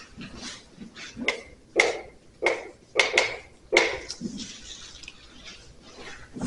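Chalk knocking and scraping on a blackboard while a number is written: a quick run of sharp taps from about a second in to about four seconds, followed by faint rustling of paper sheets.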